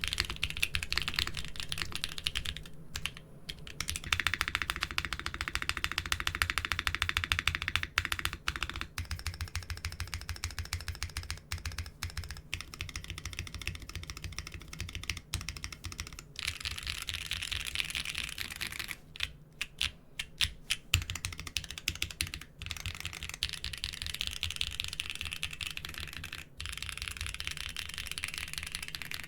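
Fast typing on a mechanical keyboard with doubleshot keycaps, a steady stream of key clicks and clacks. There is a brief pause about three seconds in and a few scattered gaps around the two-thirds mark.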